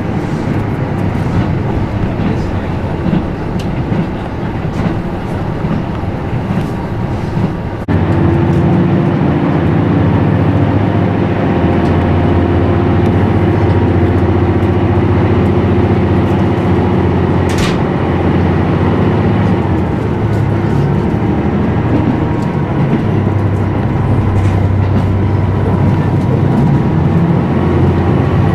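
Cabin sound of a KiHa 75 diesel railcar: engine drone and rail noise while running. About eight seconds in, the sound changes abruptly to a louder, steadier engine drone as the train pulls away from a station under power. A single short sharp sound cuts in past the middle.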